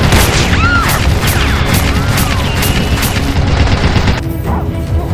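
Dubbed-in gunfire sound effects: a run of shots at about two to three a second, with short whistling swoops between them, over background music. The shooting stops about four seconds in.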